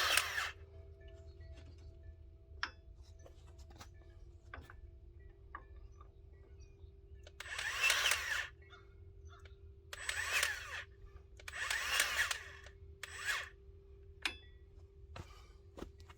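Ryobi cordless grease gun motor running in short bursts of about a second, pumping grease into a backhoe's zerk fitting: one burst ends just after the start, then four more come in quick succession after a long pause.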